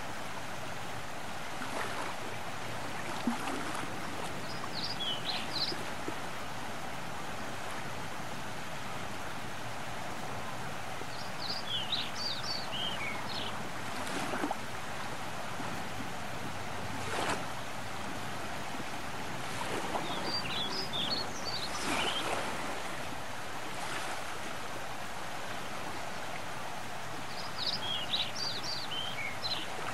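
Steady wash of small waves along a bay shoreline, with short clusters of high bird chirps a few times.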